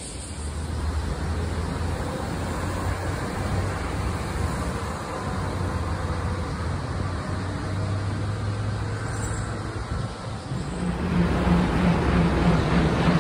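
Road traffic noise: a steady wash of passing cars with a low hum, louder from about ten seconds in.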